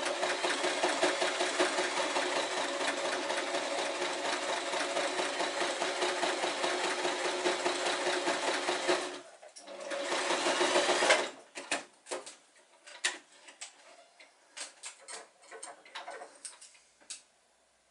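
Electric sewing machine stitching a narrow hem in light non-woven sail fabric: it runs steadily for about nine seconds, stops briefly, then runs again for about a second and a half. After that come only scattered small clicks.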